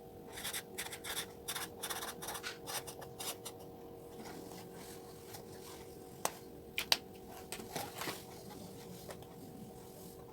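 Hands handling packing materials: a run of scratchy rustling and rubbing, then a few sharp clicks or taps a little past the middle, over a faint steady hum.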